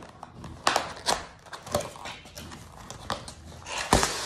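Cardboard box being opened by hand: a few sharp taps and scrapes from the lid and box, then packaging rustling near the end, with the loudest knock about four seconds in.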